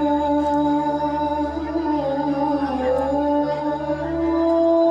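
Female voices singing together in unison, a devotional chant holding one long note, then dipping briefly about three seconds in and moving to a higher held note near the end.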